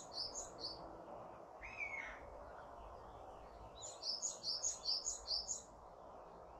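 A songbird singing a fast run of high, evenly repeated notes, about four a second, ending shortly after the start and returning for about two seconds in the second half, with a single lower slurred call in between.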